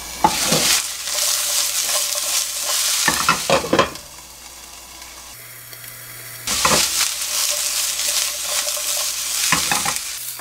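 Sliced eggplant and onion par-frying in plenty of oil in a frying pan: a loud sizzle with a few clinks of stirring or the lid. The sizzle drops away for about two seconds a little before the middle, then comes back.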